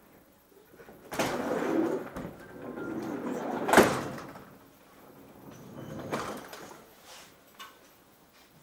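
Sliding door in a commuter-train carriage rumbling along its track and shutting with a sharp bang about four seconds in. A softer rattle follows a couple of seconds later.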